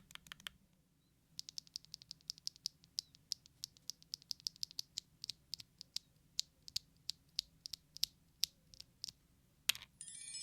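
Typing on a Neo Ergo gasket-mounted mechanical keyboard with factory-lubed BSun Buzz linear switches and ABS keycaps: a quick run of keystrokes, a short pause, then steady keystrokes at about four a second. One louder stroke comes near the end, and music starts just at the close.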